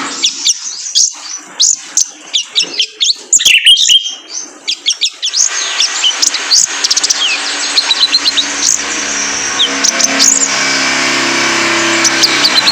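Male konin (kolibri ninja sunbird) song: a fast, continuous run of thin high chirps and quick up-and-down sweeps. A low steady hum runs beneath it in the second half.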